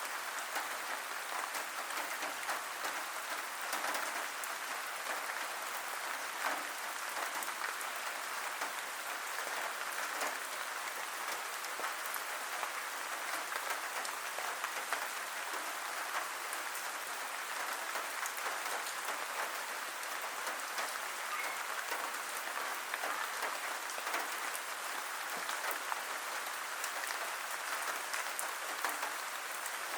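Steady rain falling, a constant hiss with many individual drops pattering and ticking.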